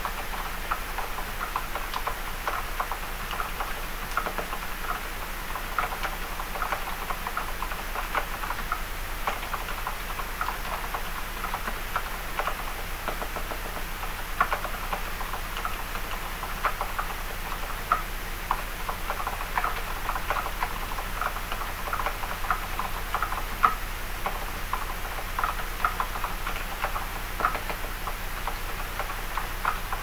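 Typing on a mechanical keyboard with silent red switches that have been lubed and fitted with light SPRIT 20CN 25S springs (20 g actuation, 25 g bottom-out): a steady run of short key clacks, several a second.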